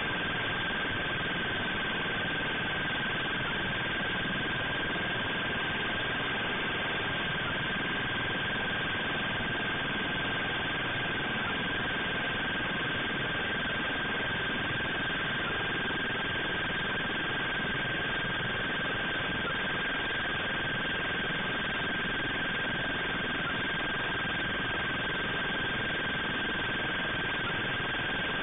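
Steady hiss with one unbroken high tone held at the same pitch throughout, with no other events.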